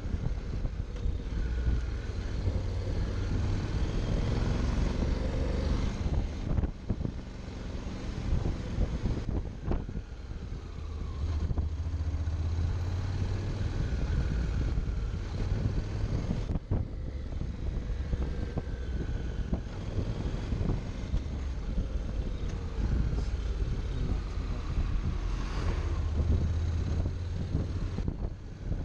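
Motorcycle ride heard from the rider's camera: the engine runs under a steady low rumble of wind on the microphone, rising in pitch several times as the bike accelerates.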